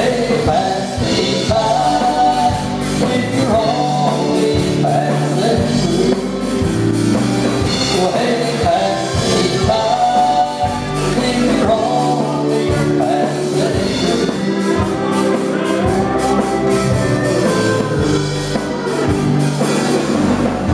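Country band playing live, a woman singing lead over electric guitars and drums.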